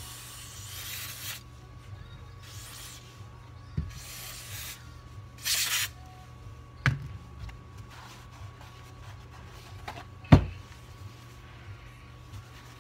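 Aerosol cleaner sprayed onto a gearbox gear in about four short hissing bursts over the first six seconds. Three sharp knocks come from the metal parts being handled, the loudest about ten seconds in.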